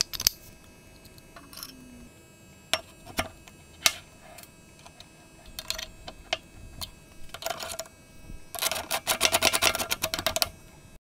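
Metal parts of an antique Goodell-Pratt breast drill clicking and knocking as it is reassembled by hand and a small wrench tightens the side handle. Near the end comes a quick run of rapid clicks lasting about two seconds.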